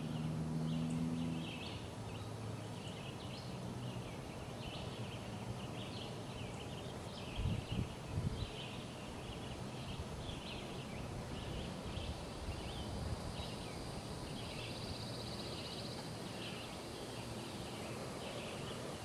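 Gentle breaths blowing into a smouldering tinder bundle to coax a friction-fire coal into flame, with a couple of louder puffs about eight seconds in. Steady high chirping runs in the background.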